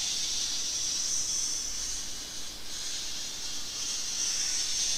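Felt-tip marker drawing on paper: a steady, high scratchy hiss as the line is traced around a spiral, with a short break about halfway through.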